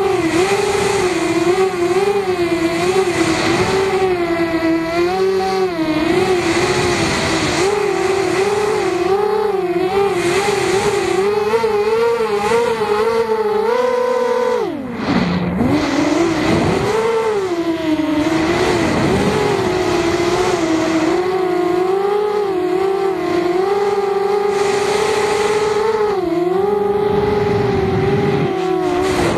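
Racing quadcopter's electric motors and propellers whining in flight, heard from a camera mounted on the quad. The pitch wavers constantly with the throttle, and about halfway through it dips steeply for about a second before climbing back.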